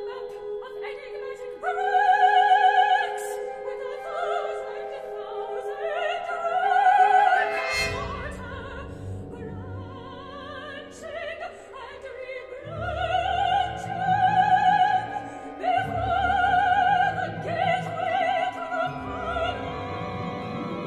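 Operatic soprano singing long held phrases with wide vibrato over a symphony orchestra's sustained chords. Deep bass tones join the orchestra about eight seconds in.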